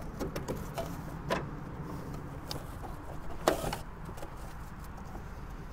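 Light clicks and knocks as hands handle metal and plastic parts inside a lawn mower's rear drive housing, with a brief louder scraping rattle about three and a half seconds in, over a steady low hum.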